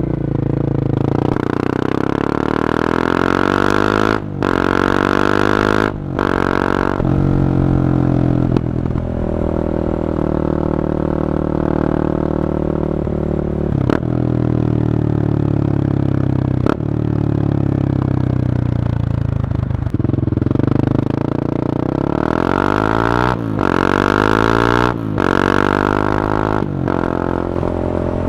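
Honda CB300R's single-cylinder engine through an Akrapovic carbon exhaust on the move: it pulls up through the gears, the pitch climbing with a short break at each upshift, then winds down slowly as the bike rolls off, and near the end it climbs and shifts up twice more.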